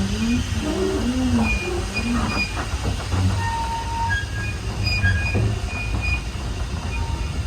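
A standard-gauge train rumbling steadily along the track, heard from on board an open wagon. Several short, thin wheel squeals sound now and then.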